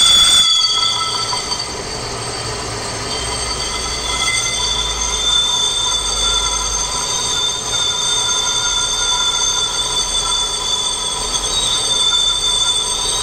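Metal lathe turning a large steel part, the cutting tool shaving steel off the spinning workpiece with a steady, high-pitched ringing of several tones over a low machine rumble.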